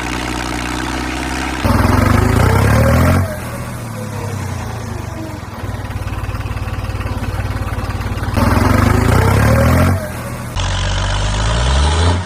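Small electric motors and gear drives of homemade mini tractors running, rising in pitch as they speed up about two seconds in and again near eight and a half seconds, with the sound changing abruptly a few times.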